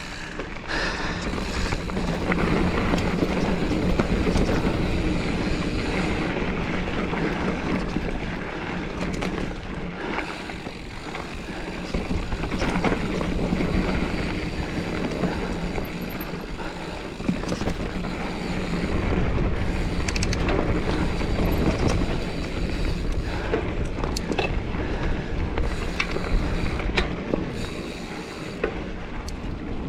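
A Giant Fathom mountain bike being ridden along a dirt trail: tyres rolling and the bike rattling over the ground, with wind rushing over the action camera's microphone. The noise rises and falls with the riding, with a few light clicks and knocks.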